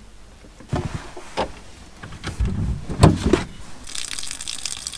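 A wooden spoon knocks a couple of times against a camping sandwich-toaster pan as roasted paprika is scraped out, then a run of heavier thumps and knocks as someone moves through the camper van, loudest about three seconds in. A steady hiss starts near the end.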